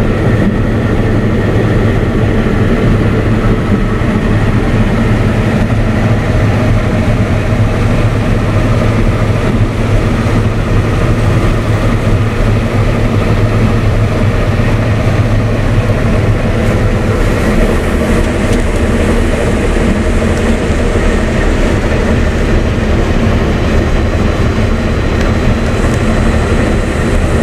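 Claas Lexion 770 combine harvester running under load while cutting grain, heard from inside the cab: a loud, steady drone of engine and threshing machinery. About two-thirds of the way through, the low hum eases and a higher hiss grows.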